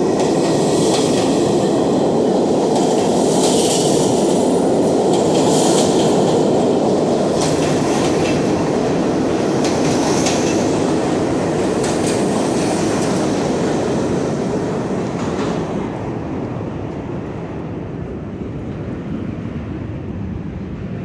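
New York City subway train running past the platform: a loud rumble of wheels on rail with a few short high-pitched wheel screeches. It fades as the train clears the station, from about 14 seconds in.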